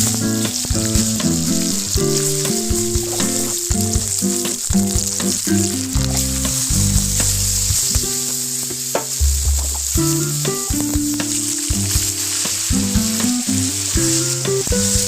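Food frying in hot oil in a pan, a loud steady sizzle with occasional stirring scrapes and clicks, over a background music bed.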